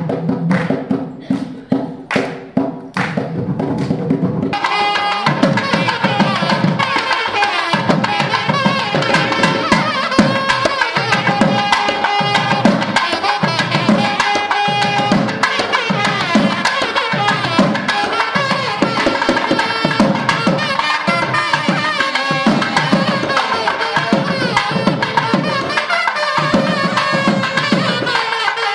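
Traditional Indian barrel drums played in separate strokes. About four seconds in, a loud ensemble comes in, with a high held melody over continuous drumming, and plays on.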